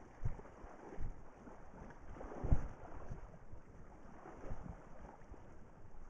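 River water washing and splashing around a motorbike being walked through a shallow ford, with wind on the microphone and a few low thumps, the strongest about two and a half seconds in.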